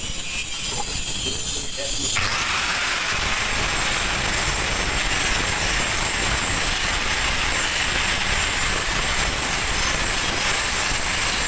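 Stick-welding arc burning steadily with a dense, even hissing noise, which jumps up about two seconds in.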